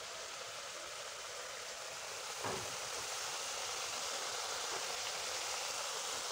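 Pitha fritters deep-frying in hot oil in a kerahi (Indian wok): a steady sizzle from the bubbling oil, with one brief knock about two and a half seconds in.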